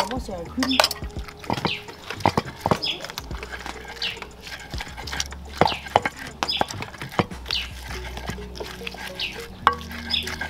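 Pestle grinding onions and pepper in a clay asanka bowl: irregular knocks and wet scraping rubs, with short high chirps about once a second.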